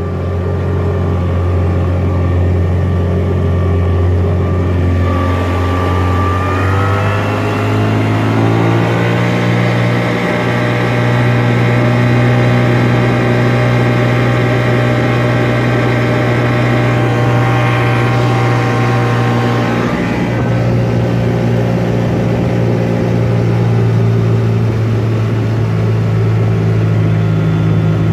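Mercury 110 9.8 hp two-stroke outboard motor running under way, speeding up about six to nine seconds in and then holding a steady speed.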